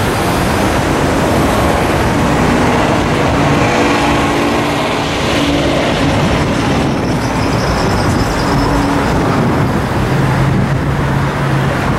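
Steady outdoor noise: wind on the microphone over road traffic.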